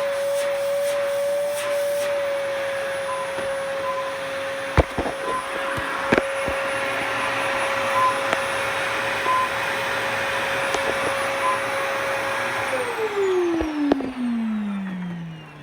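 1999 Fantom Cyclone XT vacuum cleaner running with a steady whine, a few sharp knocks about five and six seconds in. Near the end it is switched off and the motor winds down, its pitch falling.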